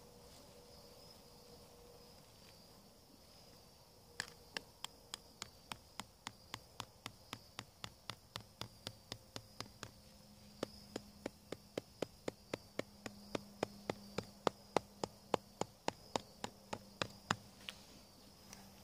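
Hammer driving steel sod pins through landscape fabric into hard, dry ground: two runs of quick, even strikes, about three a second, starting about four seconds in, with a short break about ten seconds in; the second run is louder.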